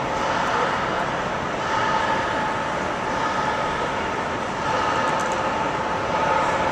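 Steady city street noise from traffic, with a faint hum that swells and fades a few times.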